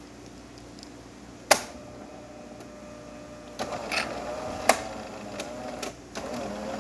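Jura C9 espresso machine running in two short stretches with a wavering mechanical hum, and two sharp clinks, one about a second and a half in and one near the middle.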